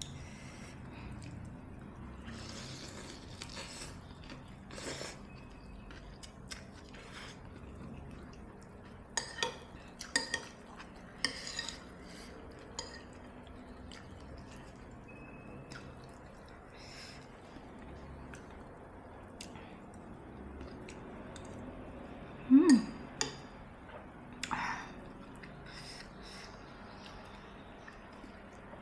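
Spoon clinking and scraping against a soup bowl while eating, in scattered short clicks, with a cluster of sharper clinks about a third of the way through and one louder short knock about three quarters of the way through.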